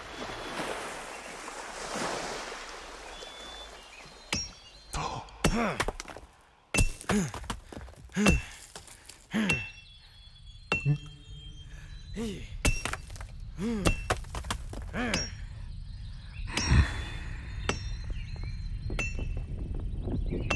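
About a dozen sharp, irregularly spaced strikes of a stonecutter's hammer and chisel on rock, some followed by a brief metallic ring. A rush of noise rises and fades in the first few seconds.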